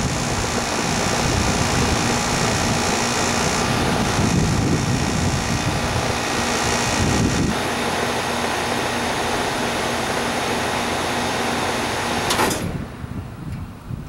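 Outdoor central air-conditioner condenser unit running: a steady whoosh from its top fan with a faint hum. The sound drops off suddenly near the end.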